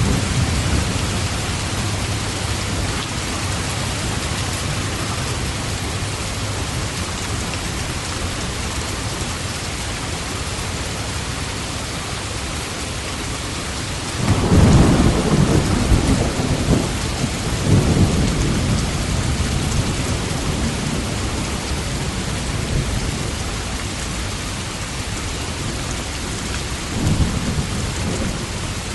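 Steady heavy rain with thunder: a sudden low rumble about halfway through swells twice and fades, and a fainter roll comes near the end.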